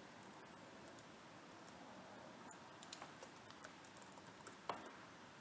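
Near silence: room tone with a few faint, light clicks and taps, scattered over a couple of seconds in the second half.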